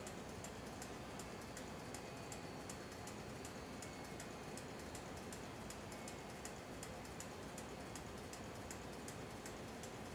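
Computer keyboard keys being tapped, light quick clicks a few times a second, over a steady faint hum.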